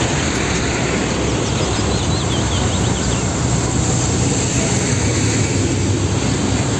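Heavy Tata dump truck driving along a road: steady diesel engine and tyre noise.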